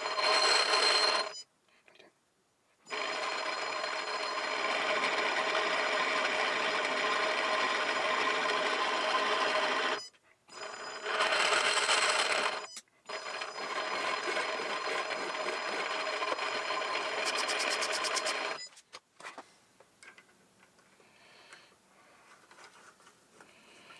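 Small metal lathe running under power for a spring pass on a fine thread, the spindle and gearing giving a steady whine. It stops and restarts twice, with louder spells at the start and near the halfway mark, and falls quiet about three-quarters of the way through.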